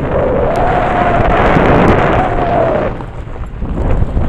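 Wind buffeting the microphone through the open window of a moving Jeep on an off-road track, a loud rush with a steady whistle-like tone that drops away about three seconds in, leaving the low rumble of the drive.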